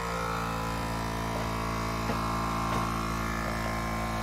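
Portable 12-volt car tyre compressor running steadily, pumping air into an old fire extinguisher used as an air tank.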